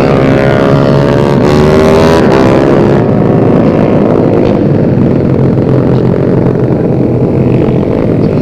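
Racing 150cc four-stroke underbone motorcycle engines running hard. The pitch slides down over the first few seconds, then the sound becomes a dense blur of engines.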